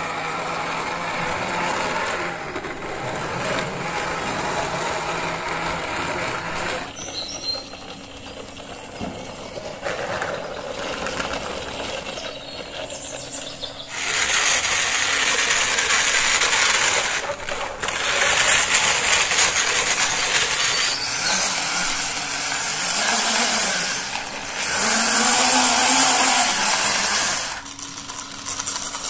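Plastic toy vehicles pushed by hand along a toy road, their plastic wheels and gearing rattling as they roll. The rattle gets louder about halfway through when a toy dump truck is being pushed, and drops again shortly before the end.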